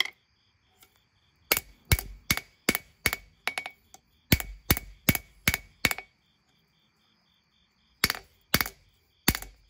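Hand hammer striking hot leaf-spring steel on an anvil, forging and thinning a knife blade's bevels. The blows come about two and a half a second, each with a short metallic ring: a run of about a dozen, a pause of about two seconds, then three more near the end.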